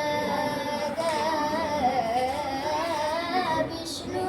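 A high solo voice singing a Marathi abhang, a devotional song. It draws out one long, ornamented vowel line without words, with wavering turns that dip in pitch and climb back.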